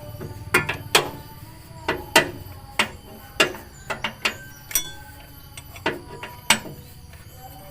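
Metal hand tools clicking and knocking against the Toyota Kijang 5K engine's parts as the fan belt is being taken off: about a dozen sharp strikes at uneven intervals, each ringing briefly.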